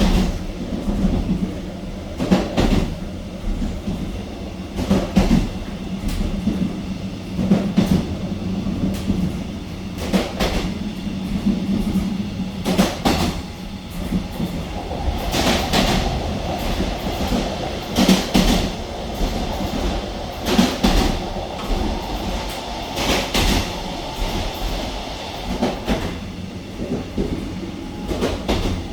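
Wheels of a Korail Nuriro electric multiple unit passing over rail joints, heard inside the carriage: a double clack about every two and a half seconds over a steady low running rumble, with a humming tone joining about halfway through.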